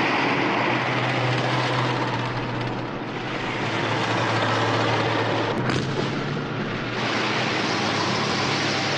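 Loud, steady roar of aircraft engines with a low hum underneath, and a single sharp crack about five and a half seconds in.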